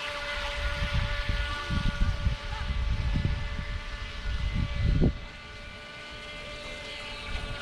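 Electric motor of a small radio-controlled boat whining steadily, a stack of even tones. Low rumbling gusts of wind buffet the microphone and stop suddenly about five seconds in.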